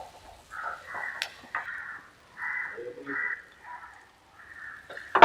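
Crows cawing several times in a row, harsh calls spaced under a second apart, with a clink of a utensil on the pan about a second in and a louder clatter at the very end.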